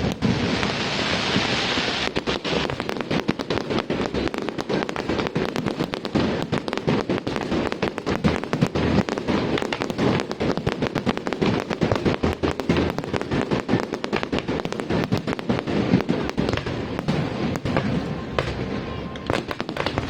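Fireworks display: many aerial shells bursting in quick, irregular succession with bangs and crackling, and a hissing crackle over the first couple of seconds.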